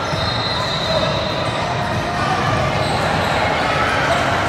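Steady din of a busy volleyball gym: many voices and play from around the hall, echoing in a large room.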